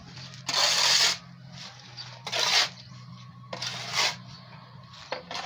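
Steel shovel scraping across a concrete floor into a pile of dry sand-and-cement mix: three gritty scrapes about a second and a half apart.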